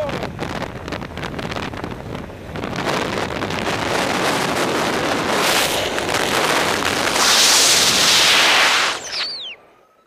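Strong rushing wind noise on the microphone of a paraglider descending in a steep spiral. It builds to its loudest about three quarters of the way in, then cuts off suddenly near the end.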